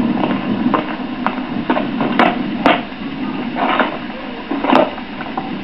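Irregular sharp knocks and clicks, about a dozen, over a steady background hum.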